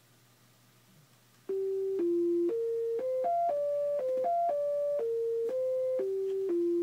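Plain electronic tones from a MIDI laser spirograph's galvo board, playing a simple single-note melody that starts about a second and a half in. The notes change every half second or so, a few quicker, each a steady pitch with little colouring.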